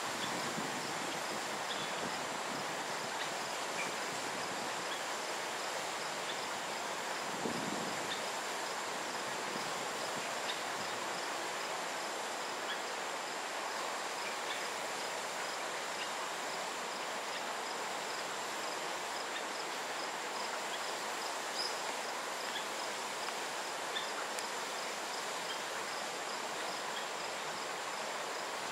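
Forest ambience: a steady high insect buzz with a high chirp repeating at a regular pace, over a constant wash of background hiss.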